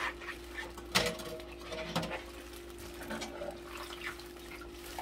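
Steel surgical instruments being rinsed by hand in a stainless steel sink: light sloshing of water, with sharp clicks of metal against metal about one and two seconds in, over a faint steady hum.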